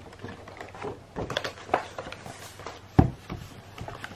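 A run of irregular light knocks and taps, with one heavier thump about three seconds in.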